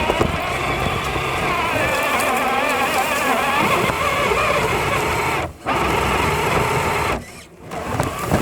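Electric motor and gearing of a six-wheel-drive Traxxas hauler RC truck whining as it drives, the pitch wavering with the throttle. The sound cuts out briefly twice, about five and a half seconds in and again for a bit longer near the end.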